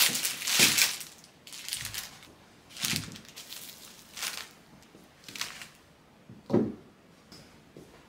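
Crinkling and rustling of packaging being handled, loudest in the first second, then in short separate bursts about once a second, with a duller knock about six and a half seconds in.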